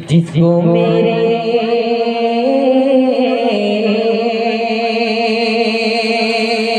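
A man singing a naat into a microphone, holding one long sung note. Its pitch steps up a little partway through and then settles slightly lower.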